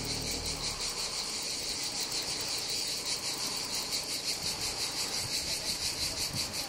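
Cicadas in a chorus: a steady, high-pitched buzzing that pulses rapidly, about six pulses a second.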